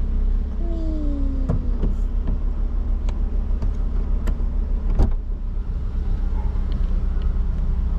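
Car engine idling, heard from inside the cabin, with several sharp clicks and knocks from things being handled; the loudest comes about five seconds in.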